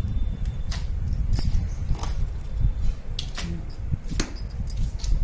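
Electric table-top wet grinder running, its stone roller turning in thick red chilli paste with a steady low rumble. Scattered sharp clicks and knocks sound over it every second or so.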